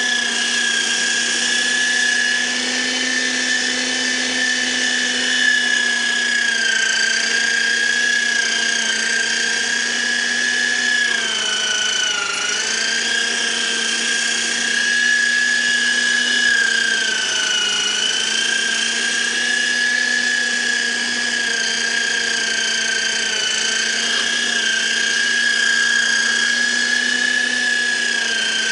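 Electric meat grinder (mincer) running, grinding fresh coriander for chutney. Its motor gives a loud, steady whine that sags in pitch twice as the greens are pressed down into it.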